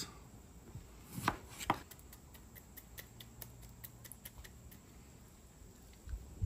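Two light knocks of handling, then a run of faint quick ticks as a fork is twisted into a halved lime to squeeze its juice over a bowl of diced steak.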